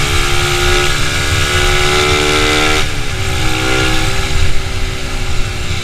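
Motorcycle engine running at cruising speed. Its pitch rises steadily for nearly three seconds, then drops suddenly about halfway through and carries on lower, over a low wind rumble.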